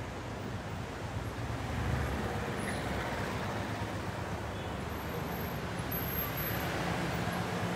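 Street traffic: a motor vehicle's engine running as a steady low hum over the hiss of passing road noise, swelling slightly about two seconds in.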